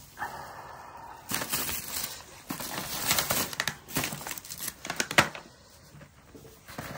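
Irregular crinkling and rustling in bursts, starting about a second in, with a sharp click about five seconds in.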